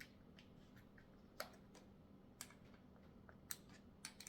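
Irregular light clicks and taps of small metal parts being handled and fitted while a bike repair stand is assembled, a dozen or so over a few seconds. A faint steady hum runs underneath.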